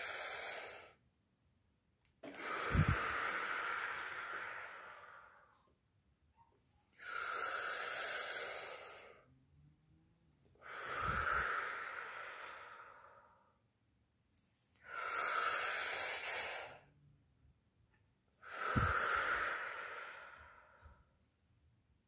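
A woman breathing deeply and audibly through her mouth in a belly-breathing exercise: five long breaths plus the end of one more, each about three seconds with a second of quiet between. Every other breath starts with a sharp push and fades out.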